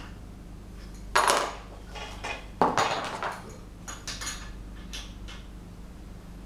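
Metal clanks and rattles from an angle grinder fitted with a long metal handle being handled on a board, not running: two louder knocks about one and two and a half seconds in, then lighter clinks.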